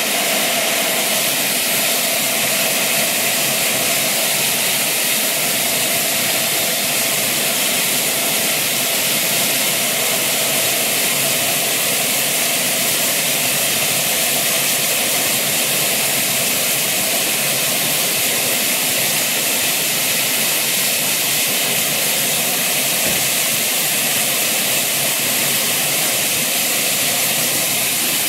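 Steam blowing off from a standing GWR 64xx pannier tank locomotive, most likely through its safety valves: a continuous loud hiss, strongest in the treble, with a faint steady tone beneath it. It does not vary for the whole time.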